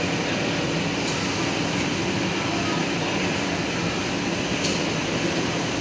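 Indian Railways express passenger coaches rolling slowly past a platform: a steady rumble of wheels on the rails, with a few faint clicks.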